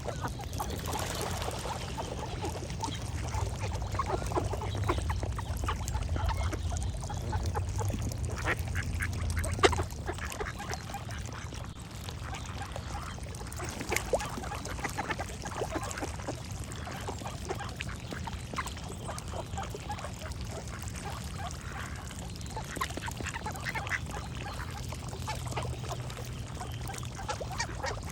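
Ducks quacking over and over in short calls, over a steady low rumble, with a couple of sharp clicks partway through.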